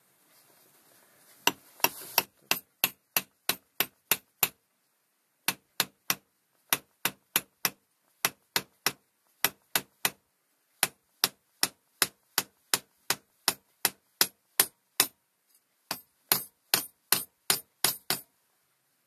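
Hammer tapping a seal driver to drive a new seal into the input shaft housing of a Massey Ferguson Multi Power transmission. Sharp taps, about three a second, come in four runs with short pauses between them.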